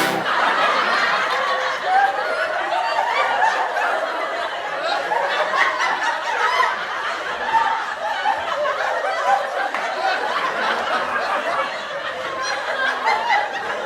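A crowd of people laughing and chuckling together, many voices overlapping in a steady wash.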